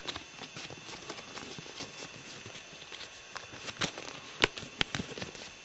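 Sheet of paper being folded and creased by hands close to the microphone: irregular rustling and crinkling, with a few sharper clicks in the second half.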